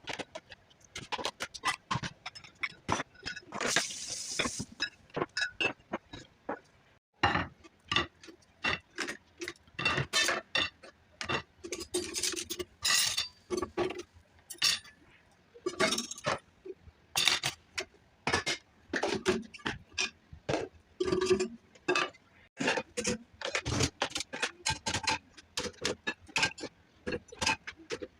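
Dishes, glasses and cutlery clinking, knocking and scraping as a dishwasher is unloaded and things are put away: many short irregular knocks and clinks, with a brief hiss about four seconds in.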